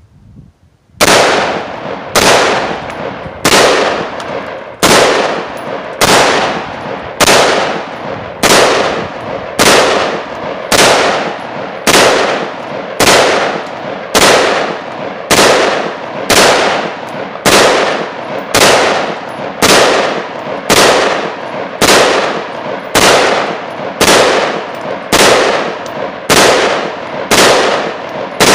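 A 10.5-inch AR-15 pistol firing 5.56 ammunition semi-automatically: about two dozen loud shots at an even pace of a little under one a second, starting about a second in, each trailing off in a short echo. The pistol is cycling every round without a stoppage.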